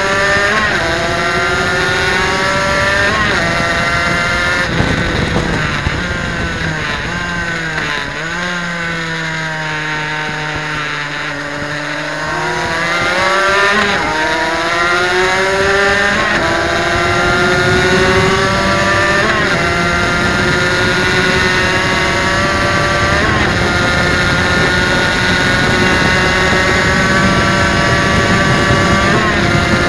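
Suzuki RGV250's two-stroke V-twin engine at racing revs, heard from onboard the bike. About a fifth of the way in the revs sink steadily for several seconds as it slows for a corner, then climb again, with the pitch dropping at each of several upshifts.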